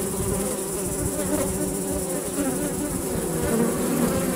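Honeybees buzzing in flight around the entrance of a wooden hive. Several overlapping wingbeat hums waver up and down in pitch.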